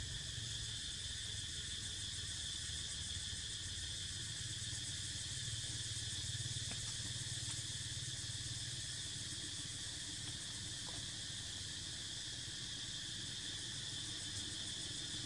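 Steady chorus of insects: a continuous high-pitched drone that does not change, over a low rumble.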